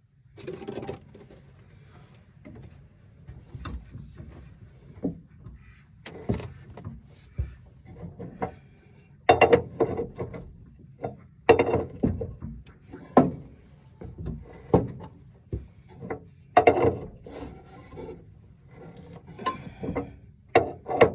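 Hand tools working on a rusted, seized seat belt bolt in an old Jeep CJ5: irregular metal clanks, knocks and scraping, with several louder clanks in the middle.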